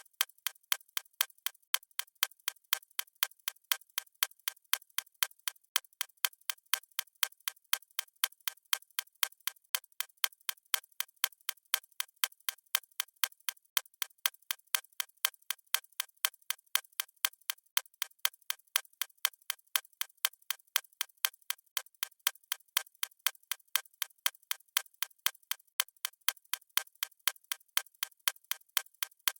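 Clock-style ticking sound effect from a countdown timer: sharp, evenly spaced ticks repeating at a steady rate.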